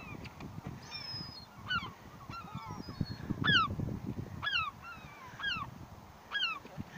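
Several gulls calling, a string of short descending squealing calls that overlap one another, with a low rumbling underneath.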